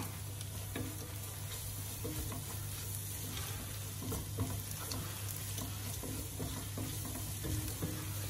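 Sliced onions, ginger, garlic and green chillies sizzling in oil in a nonstick pot while a wooden spatula stirs them, with a steady frying hiss and a few soft scrapes and taps of the spatula against the pan.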